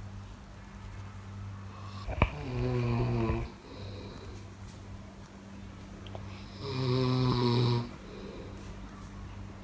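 A person snoring: two snores about four seconds apart, each lasting about a second, over a steady low hum. A short click comes just before the first snore.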